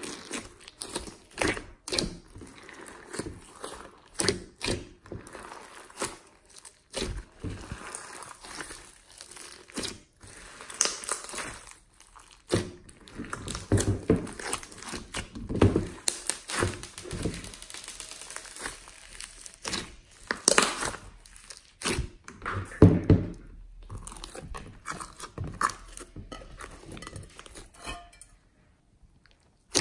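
Hands kneading and squeezing glossy slime mixed with foam beads and sprinkles: sticky squelches with a stream of irregular little pops and crackles, and a few heavier wet thumps. The squishing stops briefly near the end.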